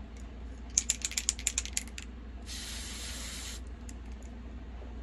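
Aerosol airbrush foundation can shaken with about ten quick rattling clicks, then sprayed in one steady hiss lasting about a second.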